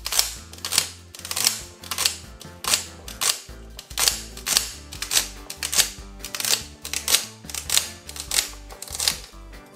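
Kitchen knife chopping celery on a cutting board: a steady run of sharp chops, roughly three a second, over background music.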